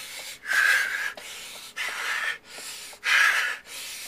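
A man breathing hard and fast while straining to push a minivan: four loud, rasping breaths a little over a second apart.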